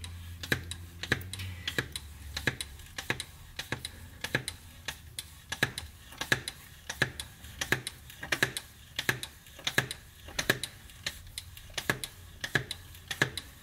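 Hand-operated fluid pump clicking with each stroke, a steady run of sharp clicks about two a second, as Mercon V transmission fluid is pumped through a hose into a 5R55W transmission.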